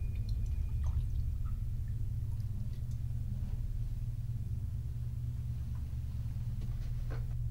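Water poured from a plastic gallon jug into a glass, with faint drips and small knocks, over a steady low hum.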